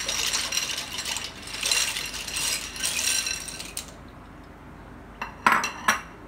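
Dry penne pasta pouring out of a ceramic bowl into a pan of water, rattling and clattering for about four seconds, followed by two sharp clicks in quick succession near the end.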